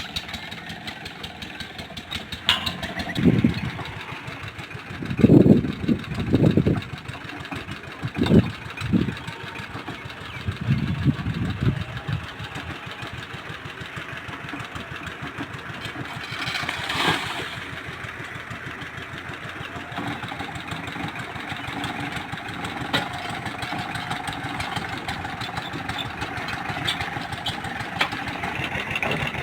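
An engine running steadily with a fast ticking throughout. Several loud, heavy low bursts come between about three and twelve seconds in.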